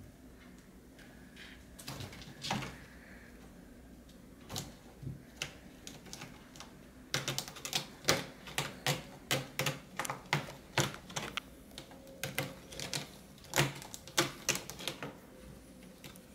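Cats' claws scratching and clicking on a sisal scratching post as two cats play-fight around it. A few scattered sharp scrapes come first, then a quick, irregular run of them from about seven seconds in until shortly before the end.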